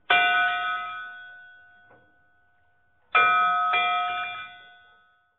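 Intro music sting of bell-like chimes: a struck chord rings out and slowly fades, then a second chord sounds about three seconds in, with a couple of lighter strikes after it, before dying away.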